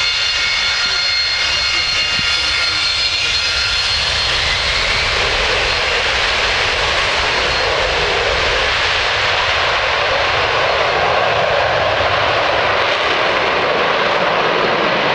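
Military jet fighter's engines: a steady high turbine whine over the first few seconds gives way to a loud, broad rushing noise as the jet goes to takeoff power, rolls down the runway and lifts off.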